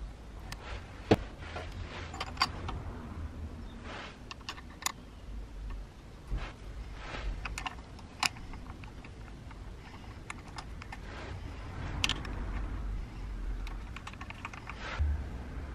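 Irregular light metallic clicks and taps as a socket wrench and small hex bolts are worked on the cutter drum of a Makita 1901 electric planer, with the bolts of the blade clamp being turned and threaded in by hand.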